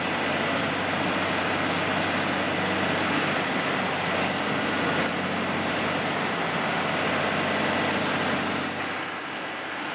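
Diesel engine of a John Deere 250G LC excavator fitted with an earth auger, running steadily at a working pace; it eases off slightly near the end.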